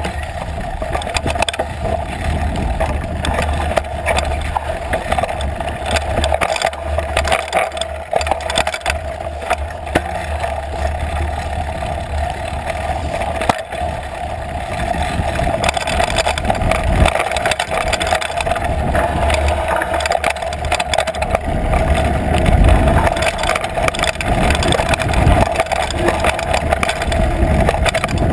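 Trek Fuel EX8 full-suspension mountain bike rattling and jolting down rocky dirt singletrack, heard close up from a GoPro on the seat post: constant clatter of the frame and drivetrain over bumps and knobby tyre noise on dirt, with a steady hum underneath. It gets louder and rougher about halfway through.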